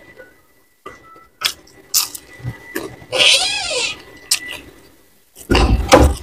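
Close-miked eating sounds: chewing and wet lip-smacking with a few sharp clicks, a squeaky, wavering mouth sound for about a second in the middle, and a louder burst near the end.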